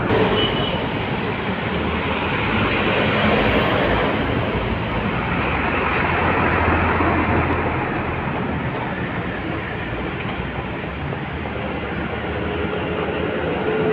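Diesel trucks and other traffic passing close by on a road, a continuous rumble of engines and tyres. The engine rumble is strongest a little past the middle, as a red cargo truck goes by at close range.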